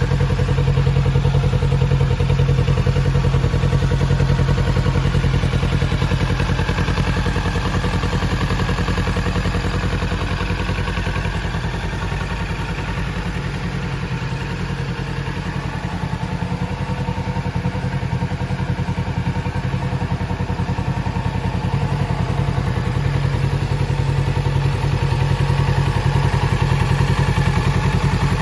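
Kawasaki Z650RS's 649 cc parallel-twin engine idling steadily through its stock exhaust, with no revving.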